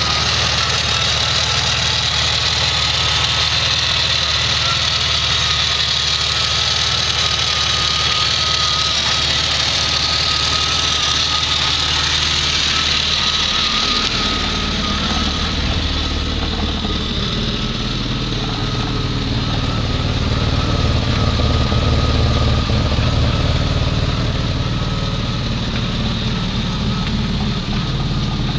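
Renault Safrane LPG-converted V6 engine idling steadily, with a thin steady whine over the engine note. From about halfway through, the low rumble grows stronger as the car is heard from alongside rather than from under the bonnet.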